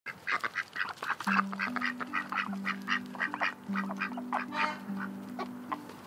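Ducks quacking in quick succession, several short calls a second. Soft background music of held low notes comes in about a second in.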